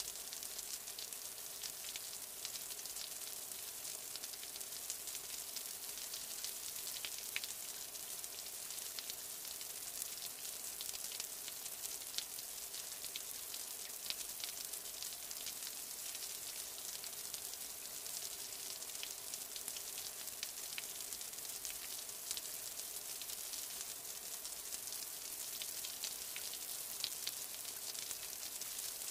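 Steady rain: an even hiss of falling rain dotted with many small, sharp drop ticks.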